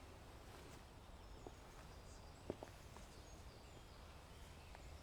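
Near silence: faint outdoor ambience, with a few faint high chirps and a soft tick about two and a half seconds in.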